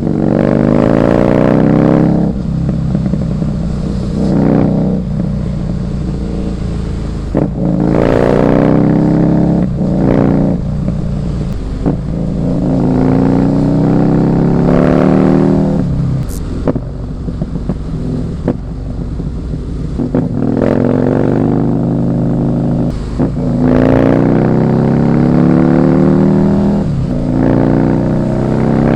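Husqvarna Nuda 900R's 898 cc parallel-twin engine accelerating hard again and again through the gears, its pitch climbing in each gear and dropping sharply at each shift.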